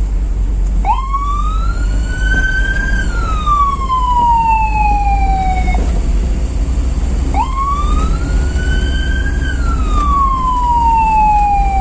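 Vehicle siren sounding two long wails: each rises quickly, peaks, then glides slowly down in pitch, the second starting about seven seconds in. A steady low vehicle rumble runs underneath.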